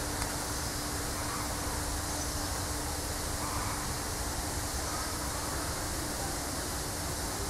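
Steady background hiss with a constant low hum and no distinct sounds standing out.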